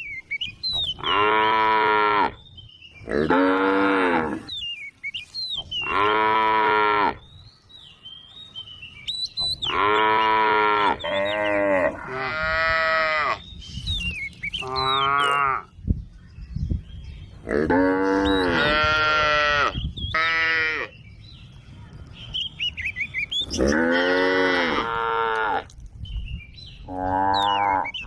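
Cows mooing repeatedly, about a dozen long calls of a second or two each, separated by short gaps.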